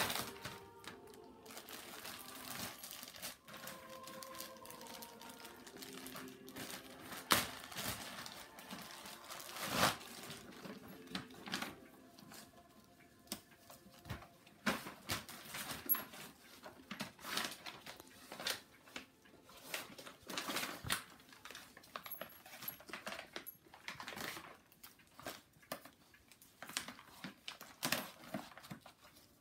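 Wrapping paper and packaging being handled: irregular rustling and crinkling with many short sharp crackles as paper is torn and bags are opened.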